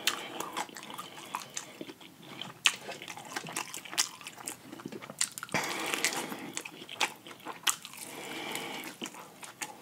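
A person biting into and chewing a crispy fried chicken drumstick, with many short crunches of the fried breading. The crunching gets denser about halfway through.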